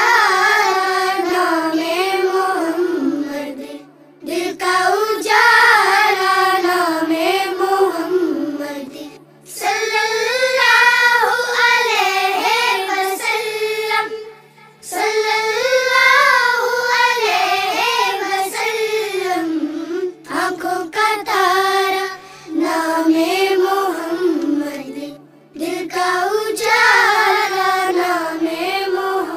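A child's voice singing an Urdu devotional poem (naat) in praise of the Prophet Muhammad, in flowing melodic phrases of a few seconds each with short breaks for breath, over a faint steady low accompaniment.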